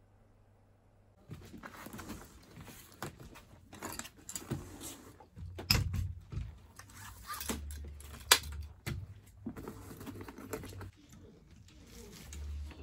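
Metal clicks, clanks and rattles of a double bass drum pedal being handled and fitted, with one sharp click about eight seconds in. A low hum comes and goes twice.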